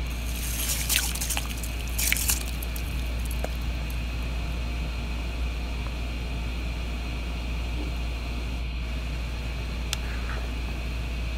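Pot of rice parboiling at a boil, the water bubbling steadily over a low, even hum. A few short clicks and clatters come in the first two or three seconds, and one more near the end.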